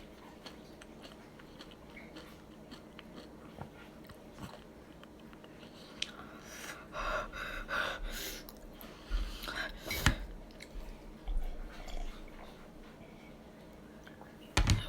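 Chips being bitten and chewed with salsa, crunching in the mouth. Faint ticks at first, then louder crunching and rustling from about six seconds in, with sharp clicks about ten seconds in and near the end.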